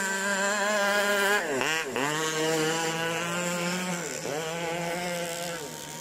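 Radio-controlled racing powerboat's motor running hard at high pitch. The pitch briefly dips and comes back four times: twice in quick succession about a second and a half in, again past four seconds, and near the end.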